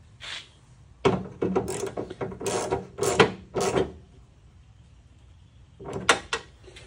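Socket ratchet clicking in quick strokes against the metal tailgate frame as 10 mm bolts are run in snug. There is a longer run of strokes from about a second in to nearly four seconds, then a short second run near the end.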